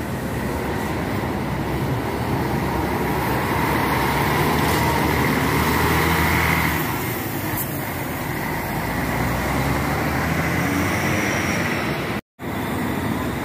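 Intercity coach's diesel engine running as the coach drives slowly past at close range, growing louder for a few seconds and then easing off. The sound cuts out briefly near the end.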